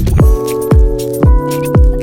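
Background music with a steady electronic beat: a kick drum about twice a second under held chords and hi-hats.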